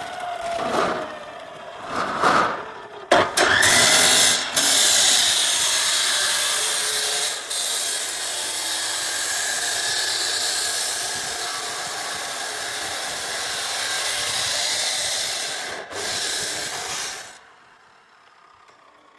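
A power tool whines up to speed about three seconds in and runs with a loud, steady, hissing noise for about fourteen seconds, then stops near the end. A few short sounds come before it starts.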